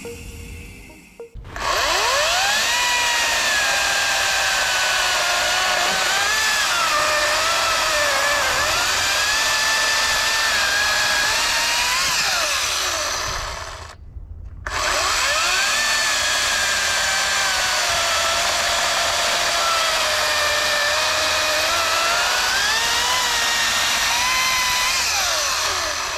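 Ryobi 40-volt brushless cordless chainsaw cutting through a log. The electric motor's whine spins up, sags in pitch as the chain bites into the wood, and rises again as each cut frees. There are two long cuts, with a short gap about halfway.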